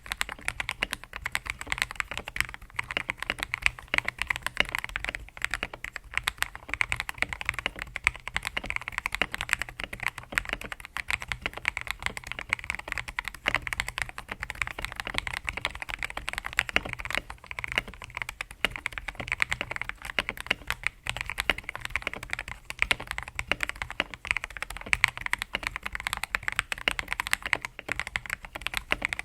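Continuous fast typing on a TM680 mechanical keyboard with lubed Akko CS Matcha Green linear switches and Bubble XDA PBT keycaps, its case dampened with foam and tape mods.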